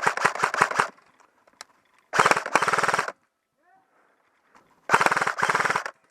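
Airsoft electric rifle firing rapid full-auto bursts: one burst ends just under a second in, a second runs for about a second from two seconds in, and two short bursts follow back to back near the end.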